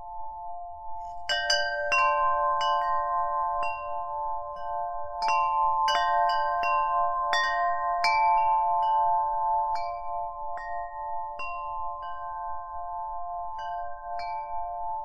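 Ambient background music: scattered high, bell-like chime strikes ring out and fade over a steady, softly pulsing drone. The strikes begin about a second in and thin out in the last few seconds.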